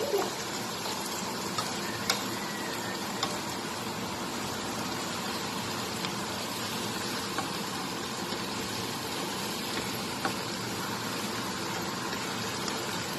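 Chopped vegetables sizzling steadily in oil in a frying pan, with a few light clicks of a wooden spatula stirring against the pan.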